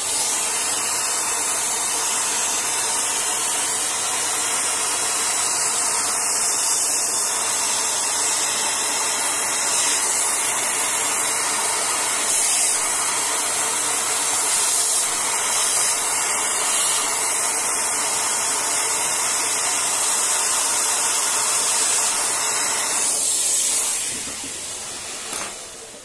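Hair dryer running steadily on a loud, even rush of air, blowing onto a graphics card to soften hardened thermal paste so it can be wiped off; it switches off near the end.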